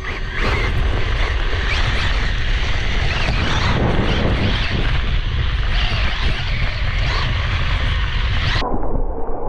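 Onboard sound of a LOSI Promoto MX electric 1/4-scale RC dirt bike riding across dry grass: a steady rush of wind and ground noise with a heavy low rumble on the bike-mounted camera. The sound turns abruptly duller near the end.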